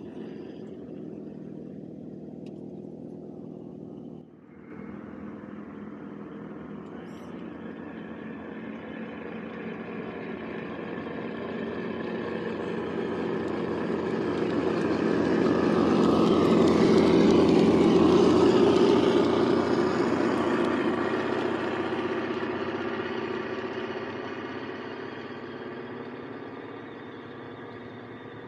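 Engine sound from the scale RC Land Rover D90 crawler's sound module, a steady engine note that grows louder as the truck comes up close, peaks a little past the middle, and fades as it drives away.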